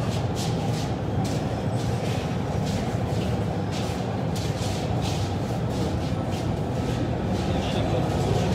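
Steady low mechanical rumble, with irregular brushing and scuffing sounds over it.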